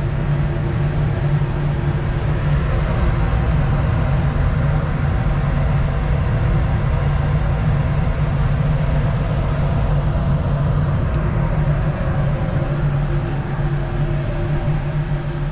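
Steady rush of a laboratory fume hood's exhaust airflow, a low hum under an even noise of moving air.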